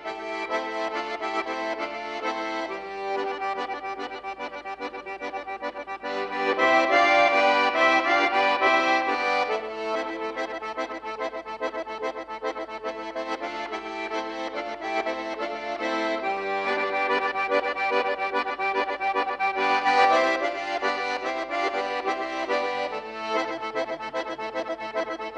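Instrumental folk music led by an accordion playing a continuous melody, the instrumental introduction to a song.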